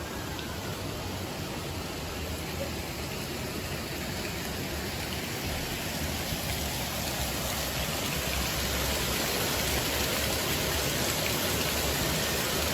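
Heavy rain pouring down, a steady hiss that grows slowly louder.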